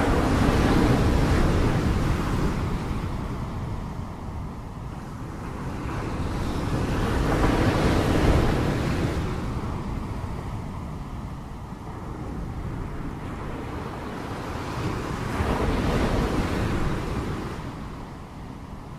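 Ocean surf: waves breaking and washing in, the rush swelling and fading three times, roughly seven to eight seconds apart.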